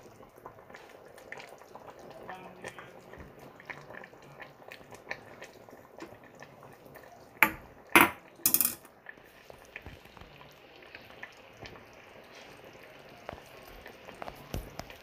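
A pot of spicy fish stew simmering on a gas stove, bubbling with many small pops. About halfway through, three loud knocks or clatters come in quick succession.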